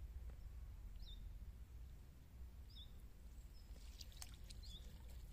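Faint outdoor ambience: a steady low wind rumble with a small bird giving a short high chirp about every two seconds. Near the end, a few light splashes and drips of water from the landing net in the pond.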